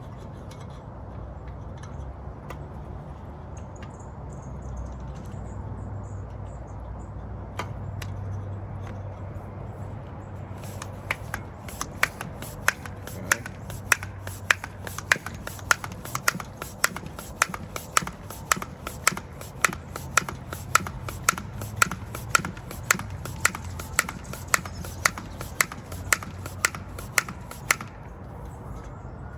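Tyre pump being worked to inflate a new 20 x 4 inch e-bike inner tube. From about ten seconds in there is a regular click on each stroke, about two a second, which stops shortly before the end.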